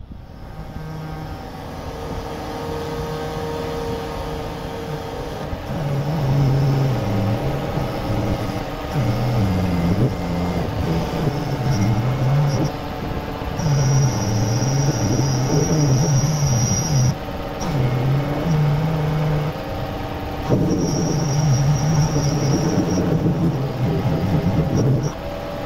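Compressed air hissing from a blow gun on a coiled air hose in bursts of a few seconds, over a steady machine hum whose low pitch wavers up and down.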